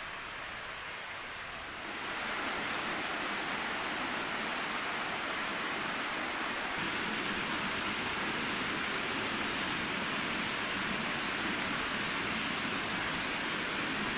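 Steady rushing of a river flowing over rocks, getting louder about two seconds in, with a few faint high chirps near the end.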